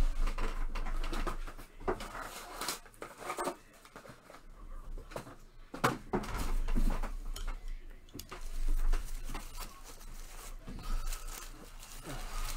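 Boxes of trading cards being handled and opened: irregular rustling, scraping and tearing of cardboard and plastic wrapping, with a few sharp clicks.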